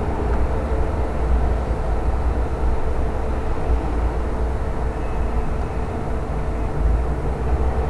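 Steady low rumbling background noise with an even hiss above it, no distinct events.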